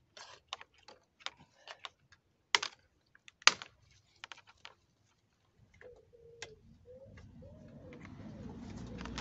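Scattered plastic clicks and knocks as the BMS wiring connectors on a BMW i3 high-voltage battery pack are unlatched and handled, two of them sharper than the rest. About six seconds in, a faint wavering tone comes in, and a low noise slowly builds toward the end.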